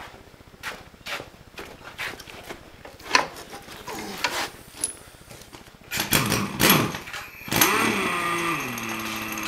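Footsteps for the first few seconds, then about six seconds in an engine cranks and starts; its pitch falls, then it settles into a steady run.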